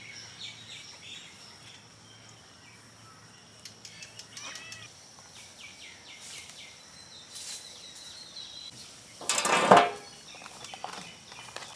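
Outdoor rural ambience: a steady high-pitched insect drone with scattered bird chirps and faint handling clicks as live spiny lobsters are tied to sticks. About nine and a half seconds in, a single louder clatter with a short ring, a tied lobster being set down on a steel plate.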